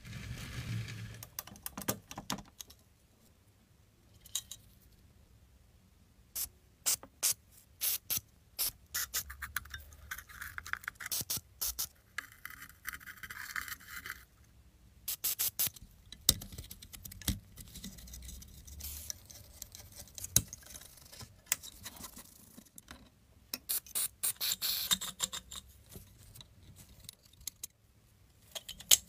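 Sharp clicks, taps and scrapes of small metal parts being handled and worked on while a rusty metal toy locomotive is taken apart and cleaned. A few seconds of steady scrubbing-like noise come about a third of the way in, and a short hissing stretch near the end.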